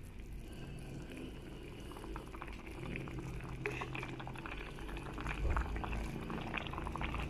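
A pot of chicken feet boiling in water, bubbling steadily. From about two seconds in, a spatula stirs through the feet, adding light clicks and sloshing that grow louder toward the end.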